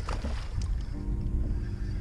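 Background music with held tones, over a steady low rumble of wind on the microphone.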